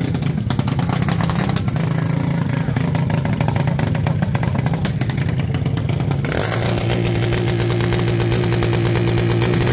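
Junior dragster's small engine running at steady revs; about six seconds in it turns louder and brighter, with a higher steady tone joining in.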